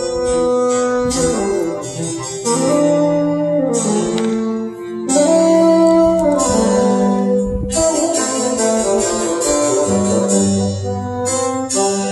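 Instrumental music played back over high-end hi-fi loudspeakers (Wilson Audio MAXX-2 driven by Manley Snapper tube monoblock amplifiers): a melody of plucked and held notes moving step by step.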